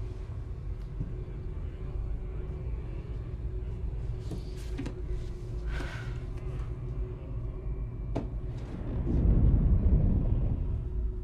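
Low, steady rumbling drone of horror-film sound design with a faint held tone, a few soft ticks and a sharp click about eight seconds in. The rumble swells to its loudest about nine seconds in, then eases near the end.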